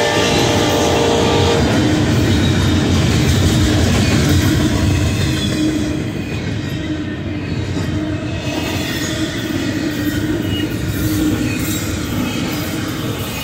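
Union Pacific double-stack container train passing at close range: the lead locomotive's horn ends about a second and a half in, then the steady rumble and clatter of the loaded well cars' wheels on the rails.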